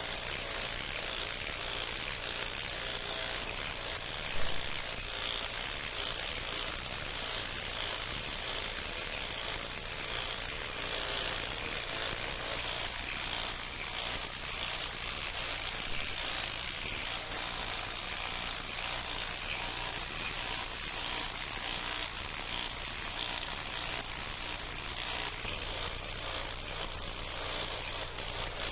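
Hand-held power grinder running steadily with a bright hiss as it cuts into the carving material, with one short knock about four seconds in.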